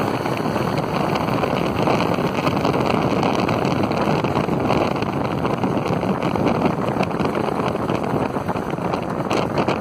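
Wind rushing over the microphone on a moving motorcycle, with a Suzuki AX100's 100 cc two-stroke single-cylinder engine running steadily at cruising speed underneath.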